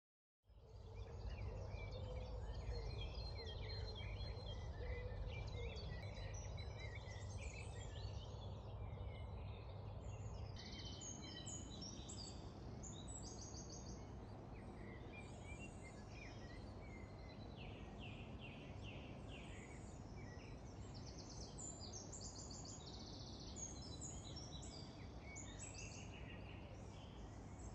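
Many small birds chirping and singing in quick, overlapping short calls and trills, over a steady low rumble.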